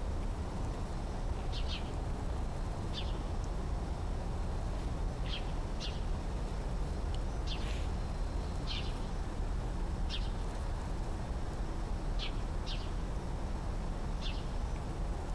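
A bird chirping: about a dozen short, high chirps, some in quick pairs, spaced irregularly a second or two apart, over a steady low rumble.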